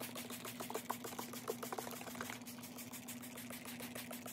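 Trigger spray bottle squirting liquid starch onto denim jeans in quick repeated spritzes, several a second, over a steady low hum.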